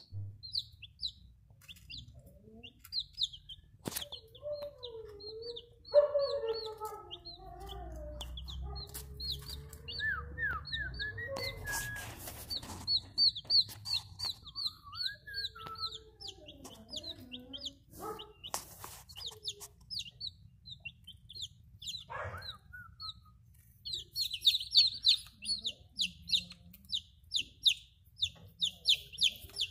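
Hatching chick peeping: a long run of short, high peeps that slide downward, coming thicker and faster near the end. Lower, wavering calls come in the first half, along with a few sharp knocks.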